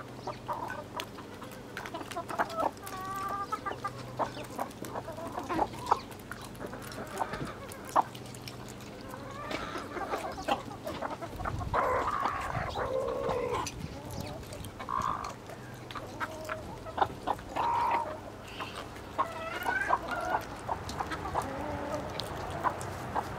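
A flock of chickens clucking as they move about and feed, with scattered sharp taps.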